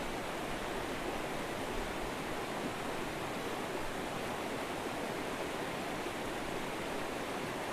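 A river's water flowing steadily, an even rushing sound with no breaks.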